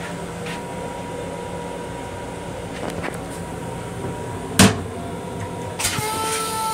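Steady hum of an M7 railcar under way, heard inside its restroom. About four and a half seconds in, a sharp loud clack as the plastic toilet seat is raised and knocks back, with a smaller knock a second later. Near the end the train's horn starts, a steady chord of several tones.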